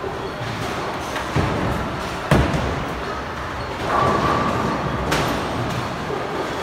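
Bowling alley din: bowling balls rumbling down the lanes and crashing into pins. There are three sharp knocks, the loudest about two seconds in, and a louder rolling clatter from about four seconds.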